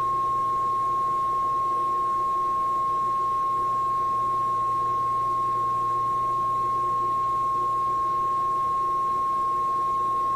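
Test tone playing from a 1968 Ford Mustang Philco AM/FM car radio tuned to a test signal: a single steady tone at one pitch, holding level, with a faint low hum beneath. The radio is being run for a fading test.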